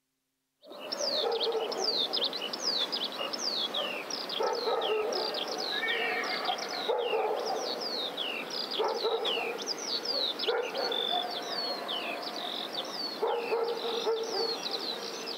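Farmyard ambience starting about half a second in: many birds chirping in quick falling notes, with a dog barking now and then underneath.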